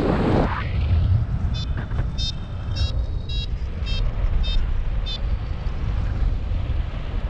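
Wind rumbling on the microphone, gusting hard in the first half second, with a paraglider's variometer giving a run of short electronic beeps, a little under two a second, for a few seconds in the middle. Beeping like this is the variometer's climb signal.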